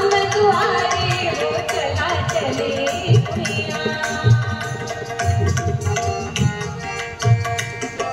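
Tabla playing a rhythm of quick strokes with deep bass strokes every second or so, under steady held notes of devotional Indian music. A singer's voice glides through a long phrase over the first three seconds.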